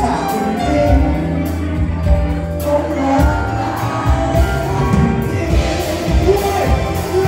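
Live band playing a pop-rock song: a man singing into a microphone over electric bass, electric guitar and drums.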